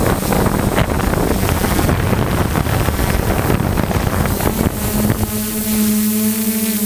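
DJI F550 Flamewheel hexacopter's motors and 10x4.5 APC propellers humming steadily in flight, heard through the onboard GoPro, with wind buffeting the microphone. About five seconds in the buffeting drops away and the steady hum stands out clearly.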